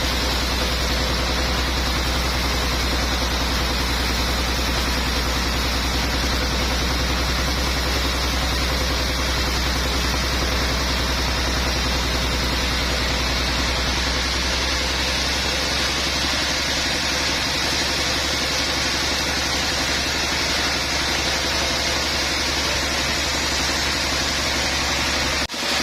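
Sawmill machinery running steadily: an even mechanical noise over a constant low hum, breaking off for a moment near the end.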